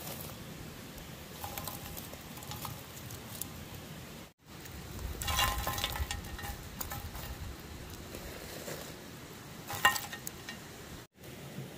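Soft sizzling and crackling from a covered cast-iron Dutch oven over hot coals, with burning charcoal on its lid popping. One sharp pop near the end.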